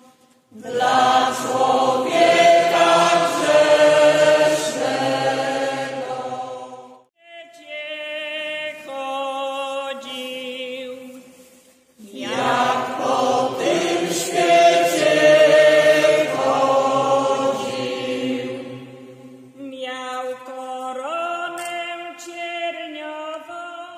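Mixed folk choir singing an old Polish Lenten hymn unaccompanied, in slow drawn-out phrases. Loud phrases of men and women together alternate with quieter phrases sung by the higher voices alone.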